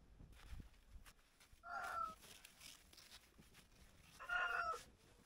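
Chickens inside a snow-covered hoop-house coop calling twice, short calls about two seconds in and again near the end, over faint scraping of a snow shovel at the door.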